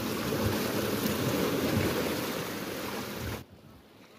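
Sea surf and wind buffeting the microphone, a steady rushing noise that drops abruptly to a much quieter wash of water about three and a half seconds in.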